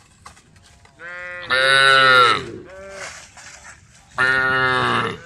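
Cattle mooing: two loud, drawn-out calls about three seconds apart, each falling in pitch at the end.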